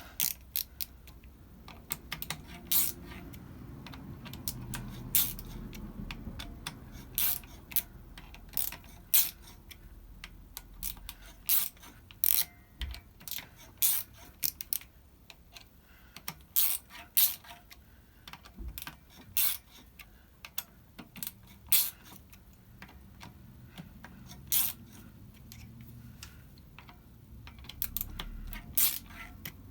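Small hand tool driving in the clutch spring bolts on a Kawasaki ZX-7R's pressure plate: a long run of irregular, sharp metallic clicks and ticks.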